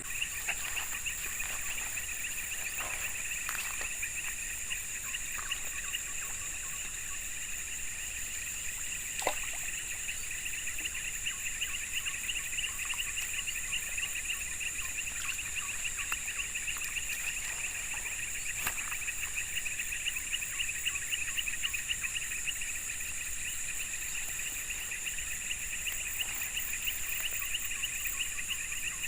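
Steady chorus of insects: a rapid pulsing trill and a continuous high whine run together, with a couple of faint clicks.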